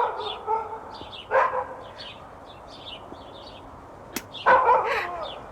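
A dog barking several times in short calls, with a sharp click about four seconds in.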